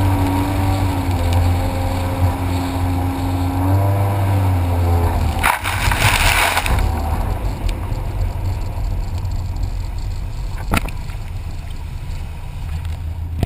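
Jet ski engine running at a steady speed, then easing off with its pitch dropping about four seconds in. A brief loud rush of noise follows soon after, and a single sharp knock comes later over the low engine hum.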